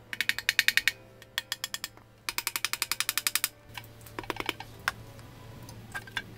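Hand ratchet clicking in quick runs as it backs out the oil pan bolts on a Toyota 1ZZ-FE engine block. There are three bursts of rapid, even clicks in the first three and a half seconds, then a few scattered knocks and ticks.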